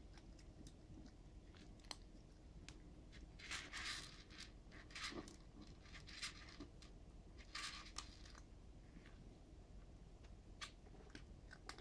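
Cat eating dry kibble: faint, irregular crunching with scattered small clicks.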